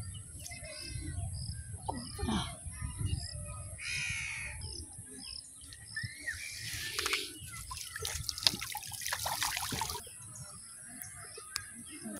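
Water splashing and running off a bamboo lift net as it is hauled up out of a pond, loudest from about six to ten seconds in, with birds calling throughout.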